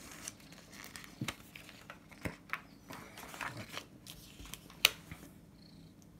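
Paper rustling and crinkling with scattered light taps and clicks as planner pages and a sticker sheet are handled, with one sharper click about five seconds in.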